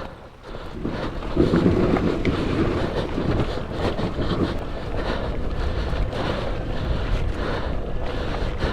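Dirt bike engine running at low revs, with wind buffeting the microphone; the sound steps up about a second and a half in and then holds steady.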